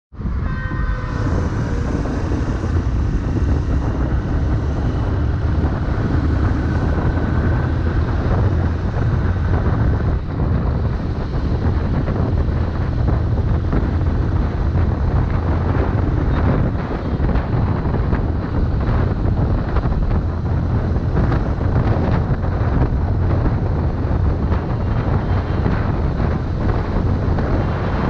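Motorcycle running at highway speed and picking up pace, its engine a steady low rumble under wind rushing over the microphone.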